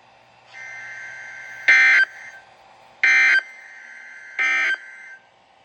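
Emergency Alert System end-of-message data signal: three short, loud, buzzy digital bursts about a second and a half apart, over a faint steady radio hiss. The three bursts mark the end of the severe thunderstorm warning broadcast.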